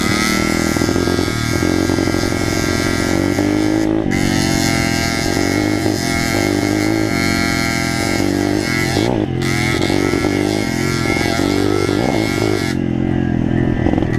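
Off-road motorcycle engine heard from the bike being ridden, pulling hard with its pitch climbing as it revs up, then dipping briefly as the throttle is rolled off about four and nine seconds in and again near the end.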